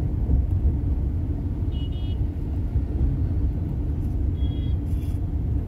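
Steady low rumble of a moving vehicle's engine and tyres on the road, heard from on board. Faint short high beeps sound twice, about two seconds in and again near the end.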